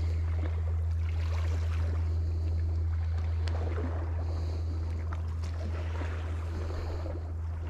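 A steady low drone, like an engine running at an even speed, with a few light clicks over it.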